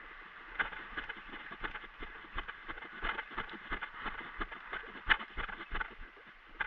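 Footsteps crunching through dry undergrowth, a quick, uneven run of crunches and snaps with one louder snap about five seconds in.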